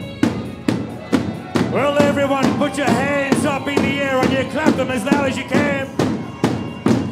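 Zaffe drumming on large double-headed tabl drums beaten with sticks, a steady rhythm of about two strokes a second. A wavering high melody joins in about a second and a half in.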